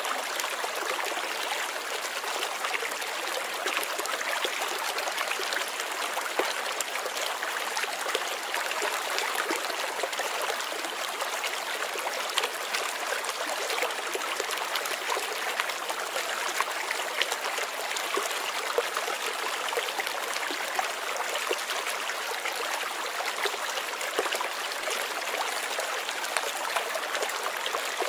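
Running water flowing and trickling steadily, an even wash of water noise with many small splashes.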